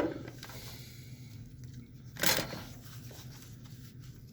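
Handling noise at a workbench: one short rustling scrape about two seconds in, over a faint low hum.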